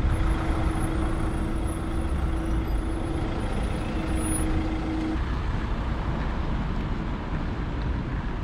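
Campervan driving slowly, with steady engine and road noise heard from inside the cab. A steady tone in the noise stops about five seconds in.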